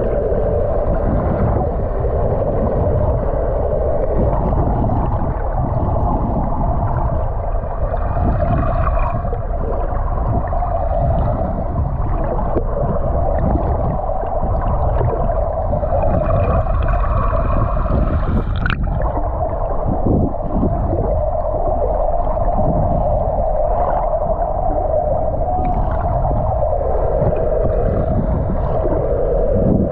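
Underwater sound beside a moving boat: a steady rush of water with a low drone. Faint dolphin whistles come twice, briefly, about eight and sixteen seconds in, and there is one sharp click a little later.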